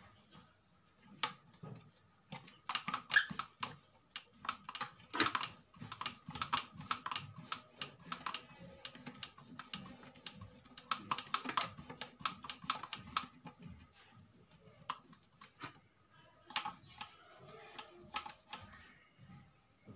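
Toothbrush bristles scrubbing around the drive coupling of a plastic blender motor base: runs of quick, scratchy clicking strokes, with a pause of a couple of seconds about three-quarters of the way through.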